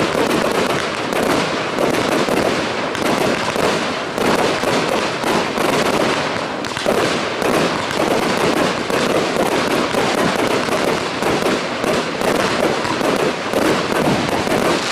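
Fireworks display: a dense, unbroken string of rapid pops and cracks from fountains, comets and small star shells going off together.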